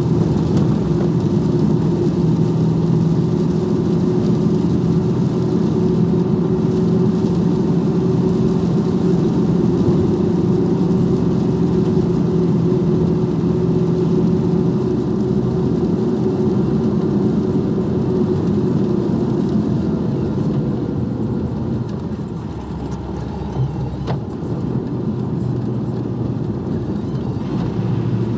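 Heavy truck's diesel engine droning steadily, heard from inside the cab while driving, then easing off and quieting about three-quarters of the way through. A single sharp click follows shortly after.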